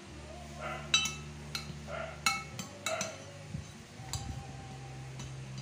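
Metal spoon clinking and scraping against a ceramic baking dish: a string of sharp clinks with a short ring, the last about four seconds in.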